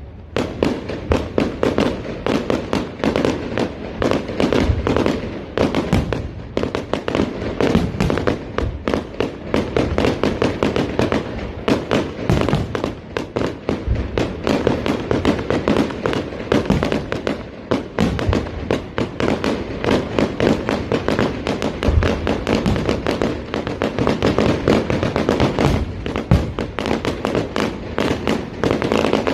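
Fireworks display: a dense, unbroken barrage of rapid bangs and crackling, many reports every second.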